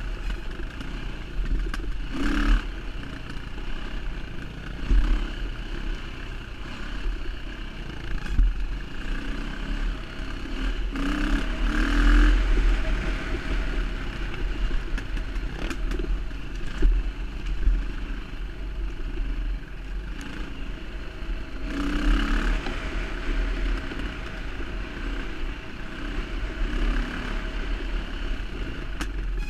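Off-road dirt bike engine running under load on a rough trail, its revs swelling and dropping several times, with a steady low wind rumble and rattle over the microphone.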